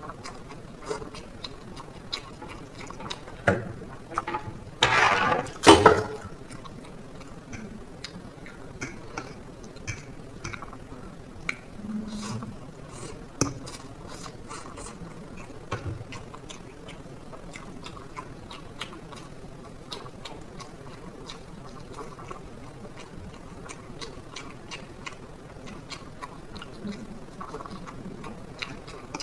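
Close-miked eating of black bean noodles: wet chewing and mouth sounds with many small scattered clicks. Two brief loud bursts of noise about five and six seconds in.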